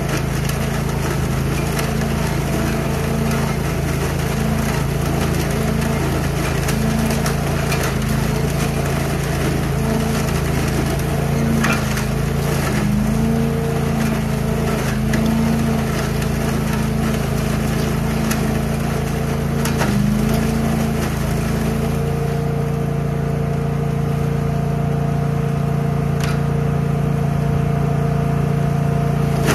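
Billy Goat trailer-mounted debris loader running steadily at full speed, its engine-driven fan sucking leaves up the wide hose, with a constant crackle of leaves and twigs rattling through. The engine note dips briefly twice.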